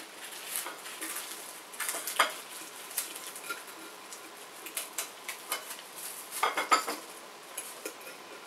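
Knife and fork clicking and scraping against a ceramic dinner plate as a baked panko-crusted pork chop is cut, with clusters of sharper clinks about two seconds in and again about four seconds later.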